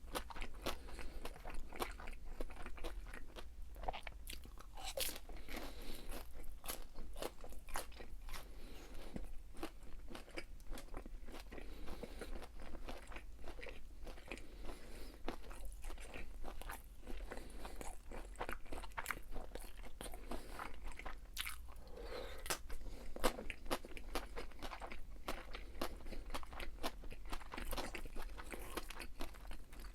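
Close-miked chewing and biting of crispy fried food, with a dense, irregular run of sharp crunches.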